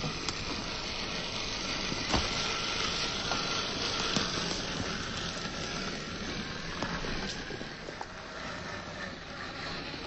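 Electric RC rock crawler with a Reedy 550 brushed motor driving over rock: a steady motor and drivetrain whir with tyre scrabble, and a few sharp knocks, the loudest about two seconds in.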